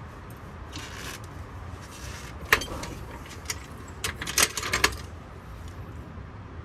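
Sharp metallic pops from the right-front suspension of a Ford Explorer with a Dana 35 front axle: one loud pop about two and a half seconds in, then a quick cluster of several pops about a second and a half later, over a low steady rumble. The pops are the top of the right-front coil spring shifting against the seat of its coil bucket.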